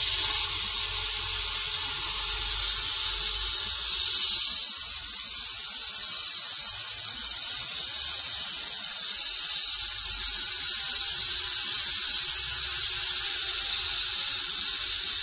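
Water-cooled bit of a vertical glass-drilling machine grinding into a sheet of glass: a steady high hiss that starts abruptly and gets a little louder about four seconds in.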